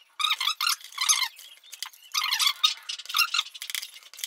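Utility knife blade cutting through a plastic can lid in a series of short, high-pitched strokes.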